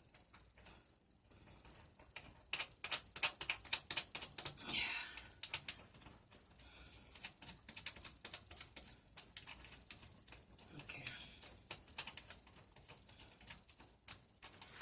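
Irregular small clicks and taps of a toilet seat's mounting bolt and nut being fitted and turned by hand, with a brief breathy sound or murmur now and then.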